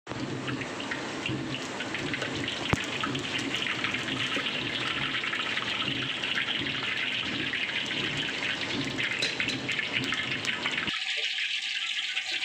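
Hot oil sizzling and crackling in a wok as a breaded slab of crab meat deep-fries, with a single sharp click nearly three seconds in. Near the end the deeper bubbling drops away, leaving a thinner sizzle as the piece is lifted out on a mesh strainer.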